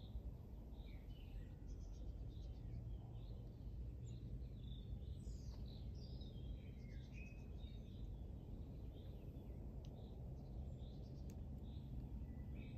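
Songbirds chirping and calling, short high chirps scattered throughout with a few falling whistled notes about halfway through, over a steady low outdoor rumble.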